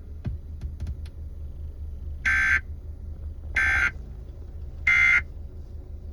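Emergency Alert System end-of-message signal: three short, identical bursts of digital SAME data tones, about 1.3 s apart, received over FM radio with a low hum underneath.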